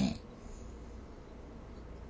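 The end of a snore cuts off just after the start, followed by a pause between breaths with only faint background hiss.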